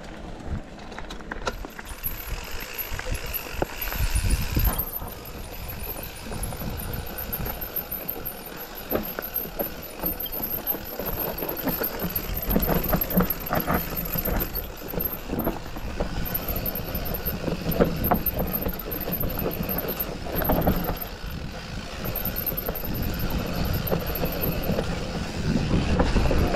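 Mountain bike ridden fast down a dirt forest trail, heard from a chest-mounted camera: a steady rushing of tyres on dirt and wind on the microphone, with irregular rattles and knocks from the bike over bumps and roots.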